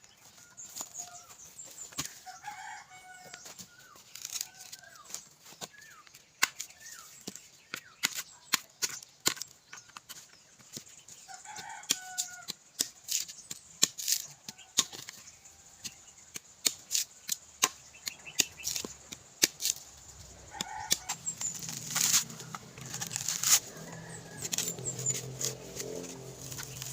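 Chickens clucking in short calls, with many sharp clicks and snaps throughout. A low hum comes in near the end.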